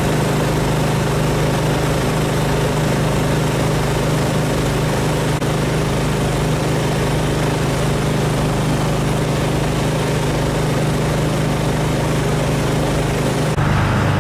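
An engine running steadily at a constant speed, a loud, even drone. The sound changes abruptly near the end to a different engine drone.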